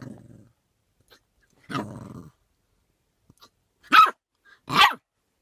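A pet animal growling low twice, then giving two loud, sharp, short calls about a second apart near the end.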